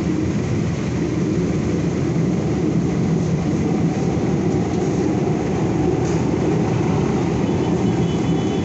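Steady low rumble of street traffic, with engines running nearby.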